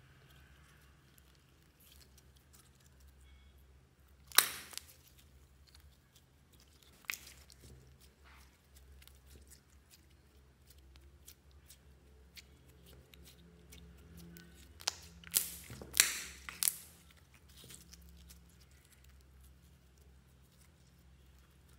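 Glossy slime with makeup mixed in, squeezed, stretched and folded by hand: faint sticky crackles and clicks throughout, a sharp pop a little over four seconds in, and a cluster of louder pops around sixteen seconds in.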